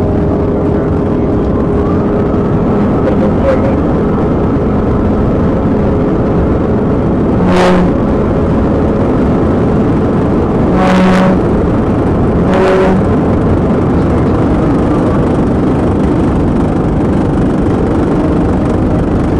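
Police cruiser driving flat out at about 120 mph: steady, loud engine, tyre and wind noise as heard from inside the car, with a few short pitched blips partway through.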